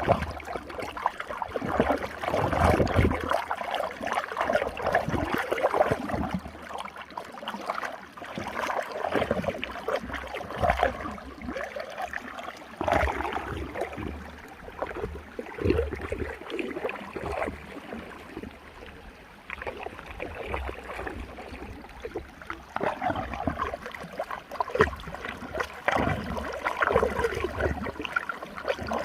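Running water swirling in a whirlpool, a continuous rush that swells and ebbs unevenly.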